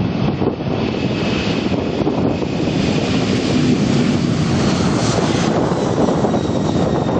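Boeing 747-400F freighter's four jet engines at take-off power: a loud, steady rumble with a faint high whine.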